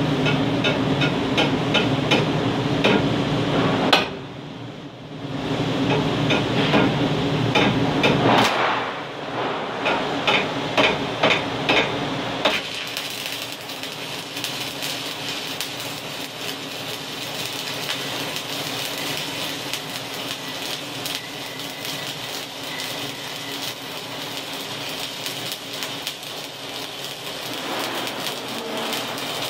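Stick-welding arc, a rod burning along a lap joint, crackling and sizzling steadily from a little under halfway in. Before it settles, a run of sharp taps and clicks, about two a second at their loudest, over a steady hum.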